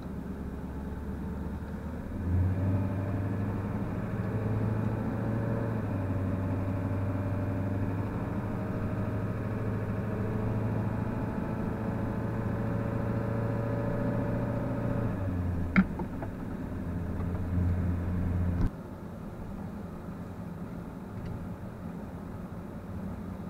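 Diesel truck engine running as the truck drives, with its hum rising about two seconds in and easing off near fifteen seconds. A sharp click comes around sixteen seconds in, and a thump near nineteen seconds, after which the engine sound drops away to a quieter hiss.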